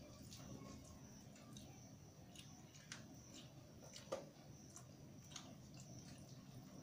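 Faint, scattered soft clicks and squishes of fingers mashing and mixing rice and dal on a steel plate, with a sharper tick about four seconds in.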